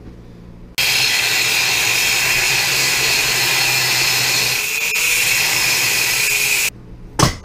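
Angle grinder with a cut-off wheel cutting into steel channel. It starts abruptly about a second in, runs steadily for about six seconds and then stops. A single sharp clank follows near the end.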